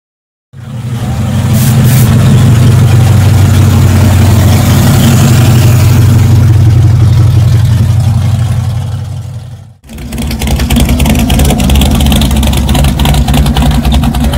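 A Chevrolet Camaro's engine running with a steady, loud drone. After a sudden cut about ten seconds in, a Chevrolet Nomad wagon's engine idles with a rapid, choppy exhaust beat.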